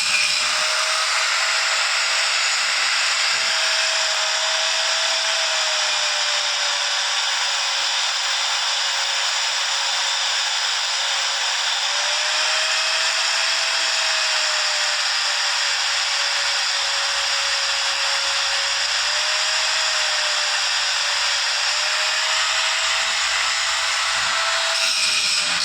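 Electric arc welding: a steady sizzling hiss from the arc as a bead is laid, with a faint wavering tone beneath it.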